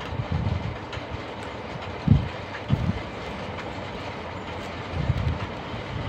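Steady background rumble with a few soft, low knocks, the loudest two about two seconds in, as coils of enamelled copper winding wire are handled on a workbench.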